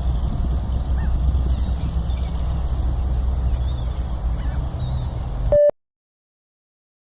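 Geese honking over heavy wind rumble on the microphone, then a short electronic beep about five and a half seconds in, after which the sound cuts to silence.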